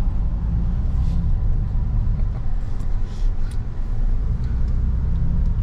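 Steady low rumble of road and drivetrain noise inside a Toyota Tundra pickup's cab as it drives slowly along a dirt trail, with a few faint light knocks.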